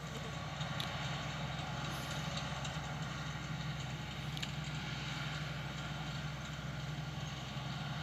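John Deere 2058 combine harvester running at a distance: a steady, even engine hum with a constant low drone.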